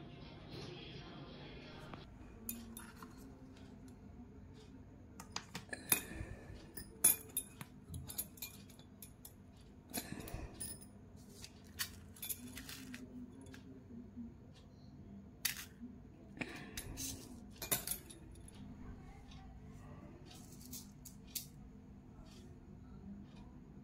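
Small metal beads clinking and rattling in a shallow steel plate as they are handled: scattered sharp clinks and taps, some ringing briefly. Soft music stops about two seconds in.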